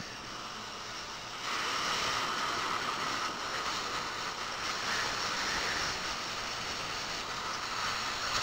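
Steady hissing rush of dental water spray and suction rinsing a freshly prepared tooth, getting louder about a second and a half in.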